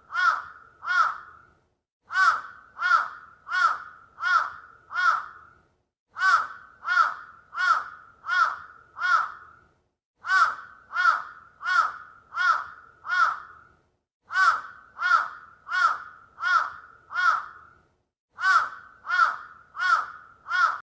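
A crow cawing: runs of about five harsh caws, a little under a second apart, with each run repeating every four seconds.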